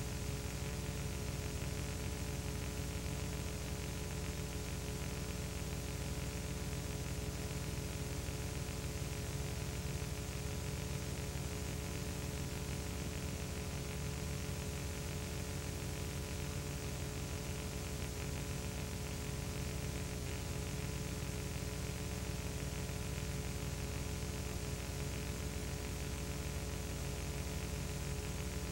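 Steady hiss with a constant electrical hum of several tones and nothing else: the noise floor of a silent old film transferred to video.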